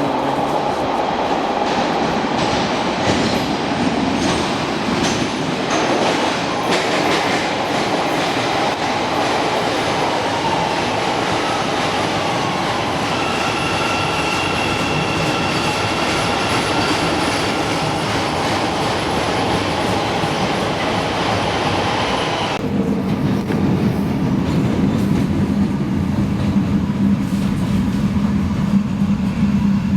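Train running on its rails, a steady rumble and rattle of wheels and car, with a thin squealing of wheels on the rails through the middle. About three-quarters through, the sound changes abruptly to a duller, lower hum.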